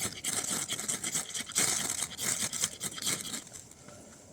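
Ferrocerium rod scraped again and again with a Leatherman Surge multi-tool, a rapid run of harsh metal scrapes that stops about three and a half seconds in. The sparks are being thrown onto damp tinder that has only begun to smoke.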